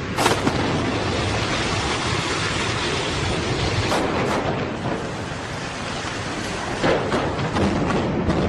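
Demolition of a building: a continuous rumble of collapsing structure and falling debris, with a sharp crack just after the start and more cracks about four and seven seconds in.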